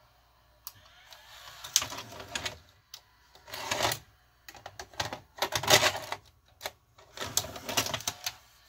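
A 1992 Fisher FVH-4901 VCR's cassette loading mechanism, motor and gears, running in four bursts of clattering and clicking as the loader carries the tape down into the deck and lifts it back out.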